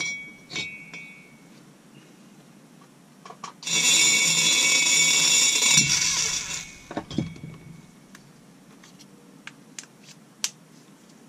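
Rotary grinding tool with a slow-speed push-button latch handpiece, running for about three seconds with a high steady whine. It starts about four seconds in and cuts off, with scattered light clicks and taps around it, as it is tried out porting a chainsaw cylinder.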